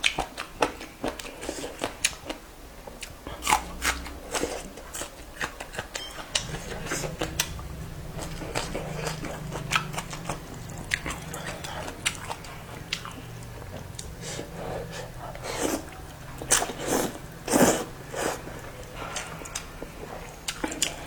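A person eating close to the microphone: repeated bites and chewing, with crisp crunchy clicks coming in irregular bunches.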